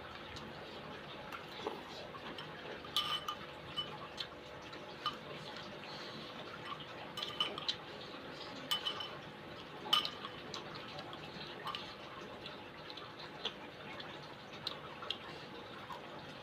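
A spoon clinking against a soup bowl while eating, in scattered light taps and clicks that come in small clusters, the sharpest one about ten seconds in.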